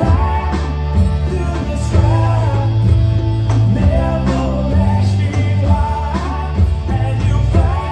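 Rock song playing: bass and guitar chords under a gliding melody line, with regular percussion hits.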